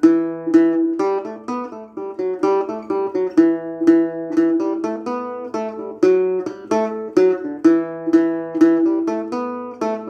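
Acoustic guitar in standard tuning playing an instrumental melody in E dorian: a steady run of picked notes, with one note recurring throughout.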